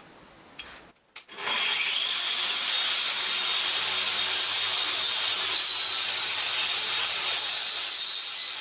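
A power tool starts up about a second in and runs steadily, grinding against the material it is working.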